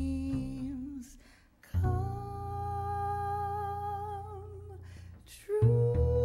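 Voice-and-double-bass jazz duet: long held, wordless sung notes over low double bass notes, with a brief pause about a second and a half in.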